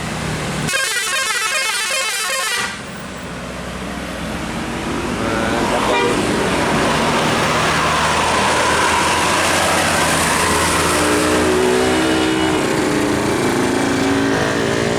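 Tour bus 'telolet' musical horn sounding a rapid warbling multi-tone tune for about two seconds, then a bus engine getting steadily louder as it approaches and climbs, its note wavering.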